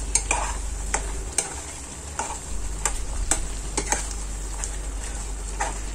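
A steel ladle stirring and scraping chicken korma with whisked curd in a non-stick kadai, giving irregular clicks and scrapes against the pan over a soft steady sizzle. The curd is being fried on high heat while stirred so that it does not split.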